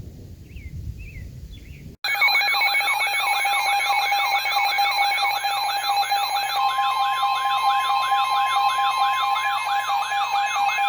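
Emergency Alert System alert tone: a loud siren-like warble sweeping up and down about three times a second over a steady tone, with a second steady tone joining partway through. It starts abruptly about two seconds in, after a quieter outdoor thunderstorm background.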